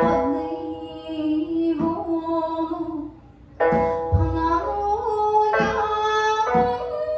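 Miyako (Okinawan) folk song sung by a woman's voice in long, held, ornamented notes to plucked sanshin. There is a short lull about three seconds in, then the sanshin comes back in with a low thump.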